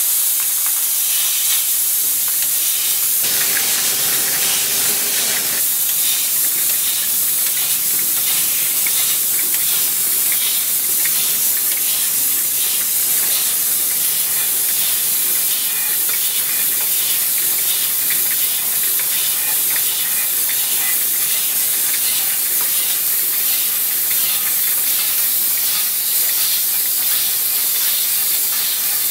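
Glass-bottle rinsing and filling machine for beer and carbonated drinks running: a loud, steady hiss of spraying and air, with faint fine ticks. A fuller, louder patch comes about three seconds in and lasts a couple of seconds.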